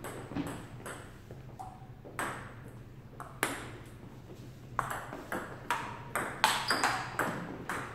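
Table tennis ball knocking off paddles and the table: a few scattered knocks, then from about halfway through a rally of quick sharp knocks, about three a second.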